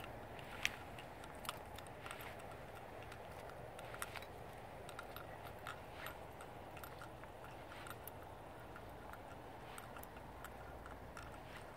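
Faint footsteps crunching on gritty asphalt: scattered, irregular small clicks and ticks over a quiet low rumble.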